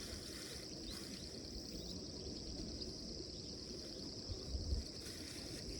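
Steady high-pitched insect chorus with a fine rapid pulse, over a low rumble with a couple of soft thumps about four and a half seconds in.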